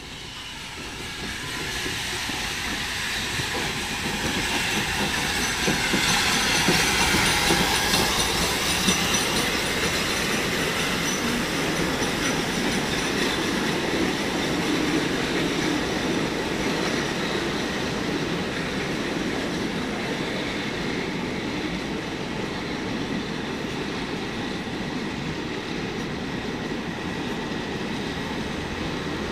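Preserved steam train passing slowly through a station, growing louder over the first few seconds to its loudest about 6 to 9 seconds in as the locomotive goes by. After that comes the steady rumble of the carriage wheels rolling over the rails.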